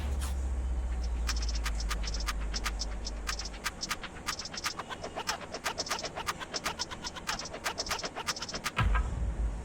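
Rapid, irregular sharp clicking, about four or five clicks a second, over a low hum that stops about three and a half seconds in, with a low thump near the end.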